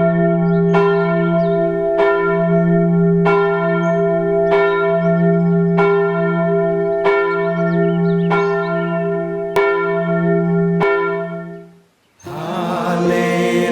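A single church bell tolling, nine strikes about a second and a quarter apart, each ringing on into the next. The tolling stops about eleven seconds in, and after a brief silence music begins.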